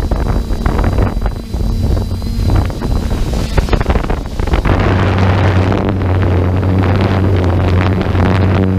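Wind buffeting the microphone in gusts. About halfway through, a steady low engine drone joins in and holds.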